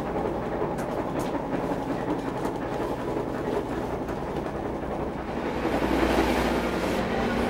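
Steady mechanical drone of a boat's machinery heard inside the cabin, with a low hum and scattered light rattles and knocks. The noise swells about five or six seconds in.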